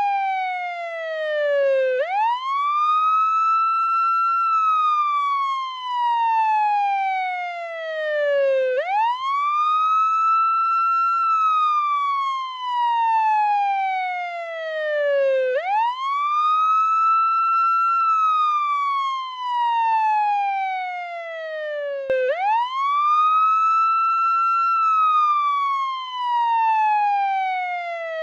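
Portuguese ambulance wail siren: a single tone sweeping up quickly, holding briefly at the top, then gliding slowly back down. The cycle repeats about every seven seconds, four times over.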